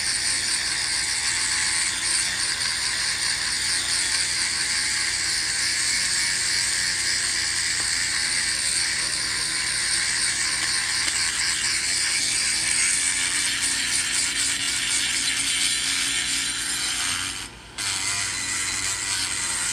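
Dremel rotary tool running at high speed, its abrasive stone bit grinding and polishing the inside of an aluminium cylinder head port: a steady high-pitched whine with a scratchy hiss. It cuts out briefly near the end.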